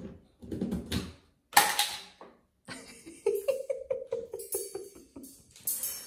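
Chrome spindle of a toilet-paper holder pulled loose by an African grey parrot and dropping onto a tile floor: a loud metallic clang about a second and a half in, then a quick run of ringing rattles as the metal tube bounces and rolls, and another sharp hit near the end.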